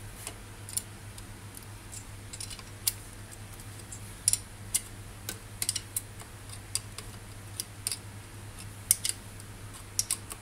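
Irregular sharp metallic clicks and ticks of a spanner working the nut that fixes the electric motor attachment to a sewing machine, as the motor is tightened in place to hold the drive belt taut.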